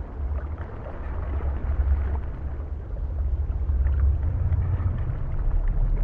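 Underwater sound of scuba divers breathing on regulators: a low, surging rumble of exhaled air bubbles.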